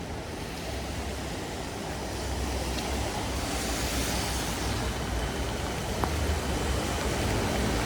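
Heavy rain falling on a city street, a steady hiss with a low rumble underneath and a brighter swell about four seconds in.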